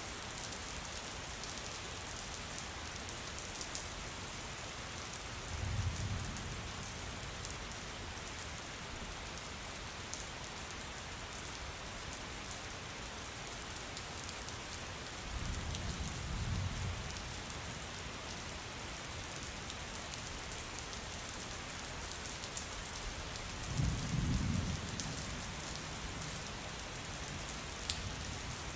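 Steady rain falling, with many individual drops ticking on a surface. Three short, low thunder rumbles are spread through it, the last one the loudest.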